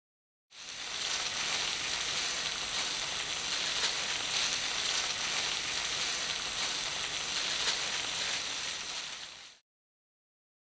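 Shredded cheese sizzling and crackling as it melts and fries into a lacy crisp in a nonstick frying pan. A steady dense hiss that cuts in about half a second in and stops suddenly near the end.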